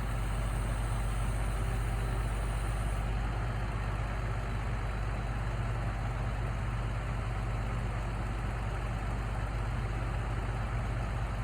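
Truck engine idling with a steady, even low hum.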